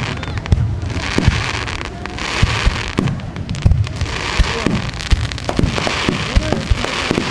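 Fireworks display: aerial shells bursting, many booms and pops in quick, irregular succession.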